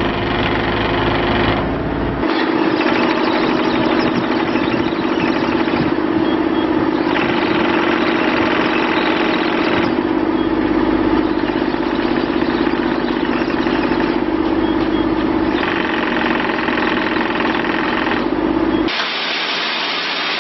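Bobcat E35i mini excavator's diesel engine running steadily under hydraulic work. The sound shifts every few seconds as the load changes, and changes clearly a little before the end.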